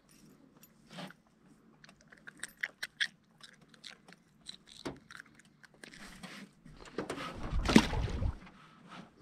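Small clicks and crunchy rattles of a small fish being handled and taken off a fishing lure. About seven seconds in comes a loud rustling rumble lasting about a second and a half.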